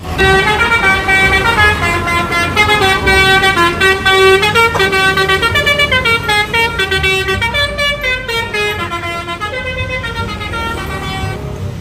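Bus telolet horn, a set of musical air horns, playing a fast tune of quick stepped notes over a low rumble. It grows quieter over the last few seconds.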